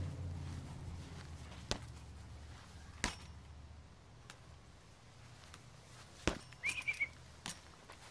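Quiet outdoor background: a low hum fades away over the first few seconds, then a few isolated sharp clicks and a brief high chirp a little before the end.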